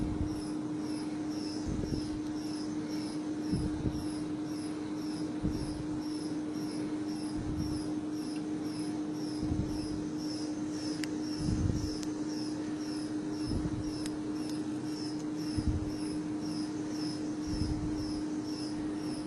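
Bending-test machine running with a steady hum, a low pulse about every two seconds and a fast, high, regular chirping, while it loads a cracked carbon-textile reinforced geopolymer panel.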